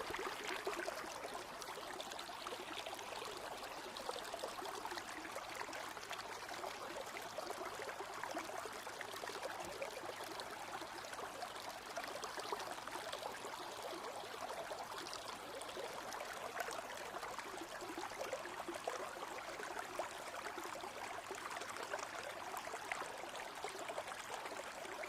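Small river or stream running steadily, a continuous trickling rush of water.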